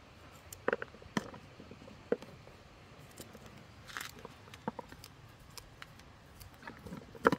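Kitchen knife cutting through onion and scallion held in the hand, with no cutting board: separate crisp cuts and taps a second or so apart, the loudest near the end.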